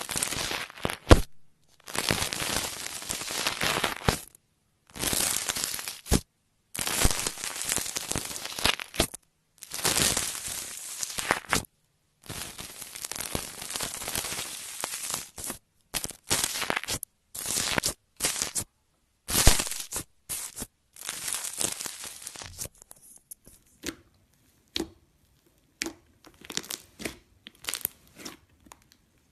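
Slime being squeezed and stretched in the hands, making crackling, crinkling sounds in a series of bursts lasting a second or two each, separated by short silences. Near the end it changes to quieter scattered sticky clicks and pops.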